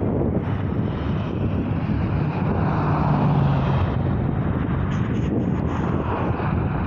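Road traffic passing, with wind rumbling on the phone's microphone: a car and a pickup truck go by, loudest about three seconds in.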